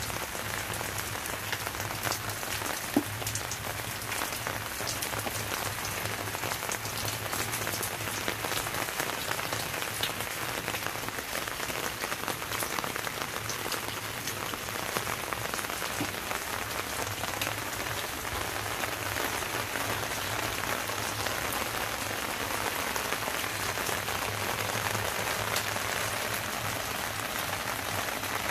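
Steady rain falling on garden plants and the ground: a constant patter of many small droplets ticking. One sharper tap stands out about three seconds in.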